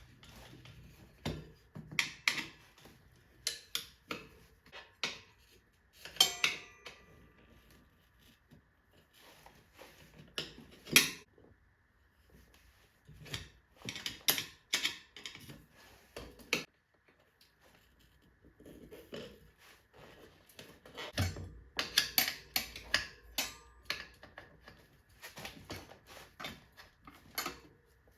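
Metal tire levers clicking, clinking and scraping against a motorcycle wheel rim in irregular clusters, some strikes ringing briefly, as the tire bead is pried back onto the rim over a new inner tube.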